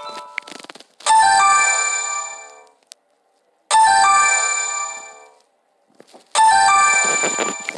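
An LG Stylo 4 smartphone speaker plays a bright chime three times, about two and a half seconds apart. Each chime starts sharply and rings out over a second or two, with faint clicks between them.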